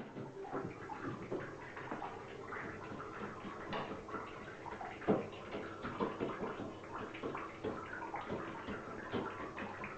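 A blackbird bathing, splashing water in quick irregular little bursts.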